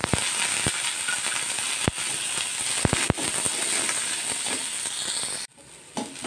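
Curry leaves and sliced shallots sizzling in hot oil in a steel kadai, a steady frying hiss with sharp pops and crackles every second or so as they are stirred. The sizzle cuts off suddenly about five and a half seconds in.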